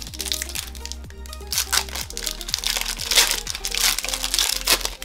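Foil booster pack wrapper crinkling in several bursts as it is handled, over background music with a steady beat.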